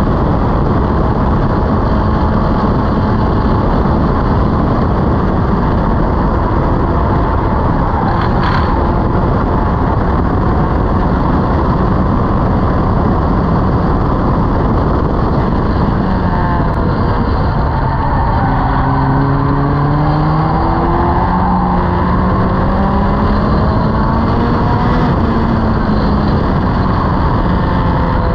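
Locost race car's engine running hard at high revs, heard from the open cockpit over a steady rush of wind. A little over halfway through the pitch falls as the car slows for a corner, then climbs again as it accelerates away.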